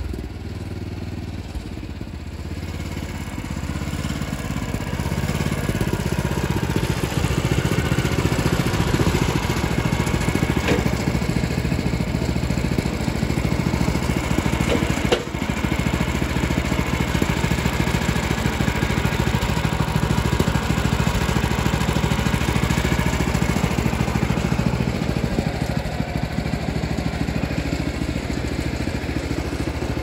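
Gasoline engine of a portable band sawmill running steadily, growing louder over the first several seconds and then holding, with a single sharp knock about halfway through. The engine has been running on quarter choke and bogging because of a gummed-up carburetor.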